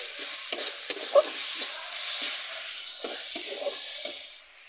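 Chopped onion, ginger, garlic and green chilli sizzling in hot oil in a metal kadai, with a spatula scraping and clicking against the pan as they are stirred. The sizzle dies down near the end.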